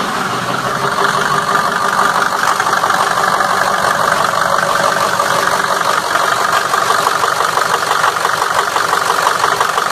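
Ford 6.0L Power Stroke V8 turbo-diesel idling steadily, with an even, rapid diesel clatter.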